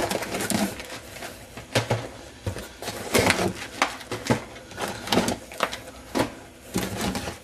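Cardboard trading-card boxes being handled and lifted out of a cardboard shipping case: irregular knocks, scrapes and rustles of cardboard against cardboard, about a dozen in a few seconds.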